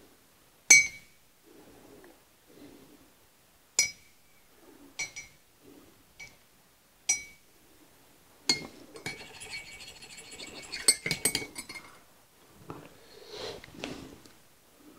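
Metal spoon clinking and ringing against the inside of a ceramic coffee mug as coffee is stirred. It gives single clinks a second or more apart, then a few seconds of rapid clinking, and near the end there is a sip from the mug.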